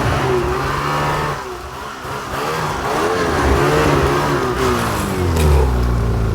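Snowmobile engine running under throttle while packing a trail through deep snow, its pitch rising and falling; it eases off about a second and a half in, then revs back up.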